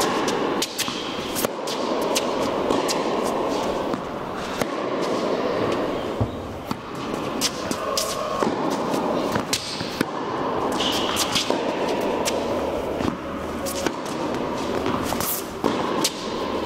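Tennis rally on an indoor court: sharp racket-on-ball hits and ball bounces, every second or so, over a steady rushing background noise. A brief high squeak comes about eleven seconds in.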